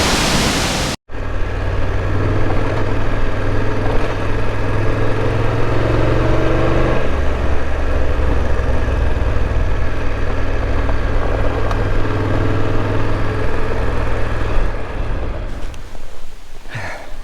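Rushing waterfall noise that cuts off abruptly about a second in, followed by a motor vehicle's engine running steadily with a low hum that changes pitch about halfway through.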